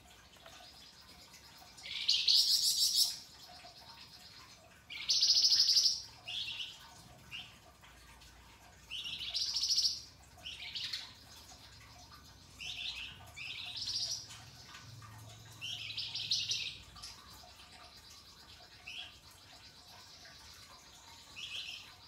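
A caged flamboyan songbird singing in short, loud bursts of chattering, rasping song. There are about ten phrases with pauses between them, the longest and loudest about two and five seconds in.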